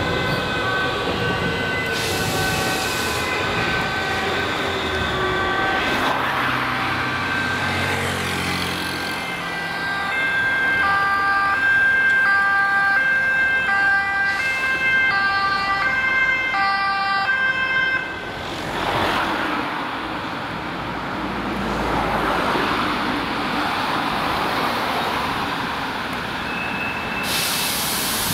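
Dutch two-tone emergency-vehicle sirens (police car and ambulance) sounding an even high-low alternation. The sirens grow louder about ten seconds in and stop abruptly at about eighteen seconds. After that come engine and tyre noise as the vehicles drive past.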